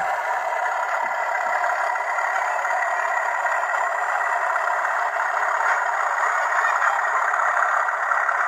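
O gauge model locomotive running on the layout track, a steady, even mechanical running sound.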